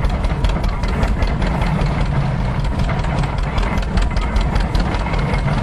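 Old farm tractor engine running steadily while belt-driving an antique stationary straw baler, with a constant fast clatter of knocks over a low engine drone.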